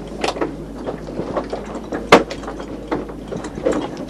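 Sailing yacht's deck gear clicking and knocking irregularly as the boat comes about, with one sharp, loud knock about two seconds in.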